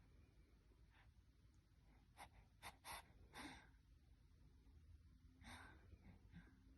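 Faint breathing of a sleeping boy: a few short breath sounds about two to three and a half seconds in and one more about five and a half seconds in, otherwise near silence.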